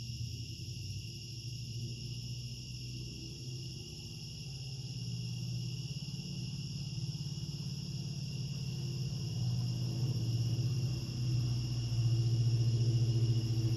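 Third-generation Ford Coyote 5.0 V8 engine running at a low, steady idle, getting louder toward the end, with crickets chirping steadily throughout.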